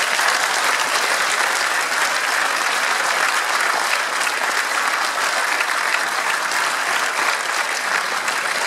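Wedding guests applauding, a steady round of clapping from a large gathering.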